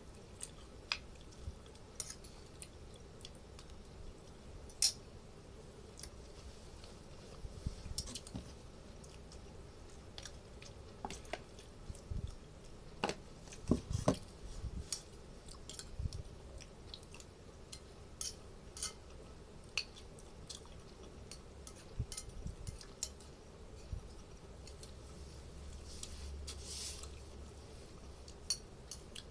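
Spoon clinking and scraping against a plate while eating rice, in irregular small clicks, with a few louder knocks about halfway through.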